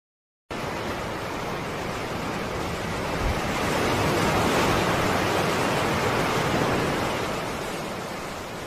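Sea-wave sound effect: a steady rushing noise that starts about half a second in, swells toward the middle and eases off near the end.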